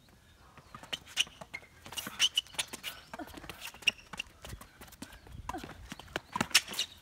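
Tennis balls volleyed back and forth with rackets at close range, a quick rally of sharp pops, with footsteps on the hard court between hits.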